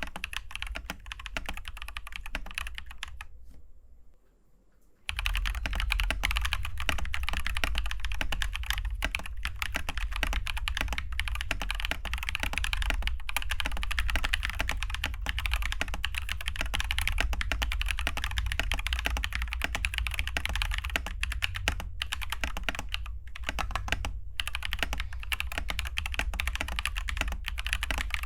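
Fast, continuous typing on a mechanical keyboard fitted with Glorious Panda tactile switches, a dense stream of key clacks with a short pause about four seconds in.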